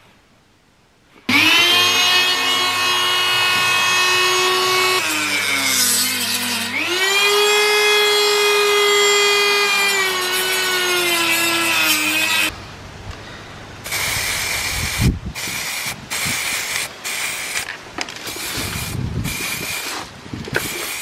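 Small high-speed power tool whining for about eleven seconds, its pitch sagging about five seconds in and climbing back before it stops. Quieter rubbing and scraping with scattered clicks follow.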